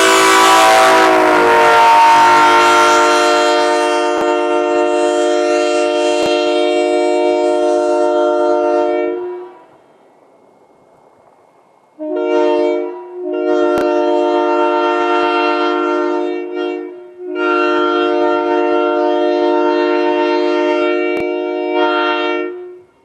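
A 1961 S3K three-chime locomotive air horn sounding a steady chord: one long blast of about nine seconds whose pitch settles slightly lower about a second in, then after a short pause three more blasts, short, medium and long.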